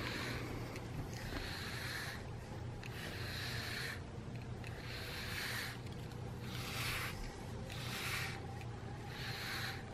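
A plastic-bristled PetZoom grooming brush raking through a cat's fur in about six long strokes, a soft brushing hiss with each pass, roughly one every second and a half.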